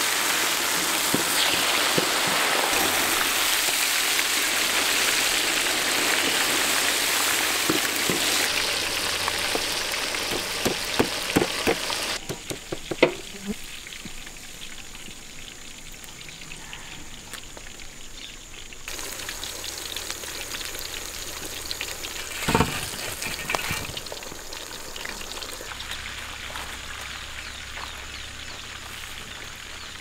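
Chicken pieces deep-frying in a large wok of hot oil, a loud dense sizzle, on their second fry for extra crispness. Near the end of the sizzle come a few sharp clicks of a utensil against the pan, then the sizzle drops away suddenly to a much quieter background with an occasional knock.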